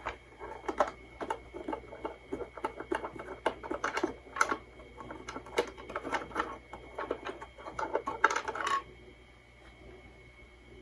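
Quick small clicks and scrapes of a plastic cover being worked loose and pulled off a small transistor radio, stopping about nine seconds in.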